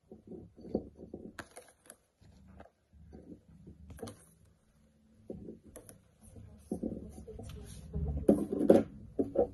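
Sliced garlic tipped off a plate into a glass bottle: scattered light taps and knocks over a low handling rumble, with a cluster of knocks near the end.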